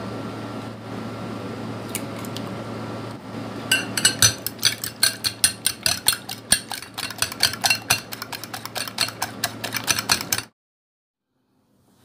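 Eggs being beaten in a glass bowl: a utensil clicks rapidly against the glass, several strokes a second. It starts a few seconds in over a steady low hum and cuts off suddenly near the end.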